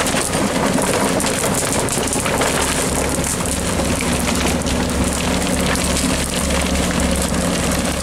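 Tracked excavator's diesel engine running steadily while its grapple crushes and twists the splintered butt of a felled Monterey cypress, with a dense crackle of breaking wood over the engine.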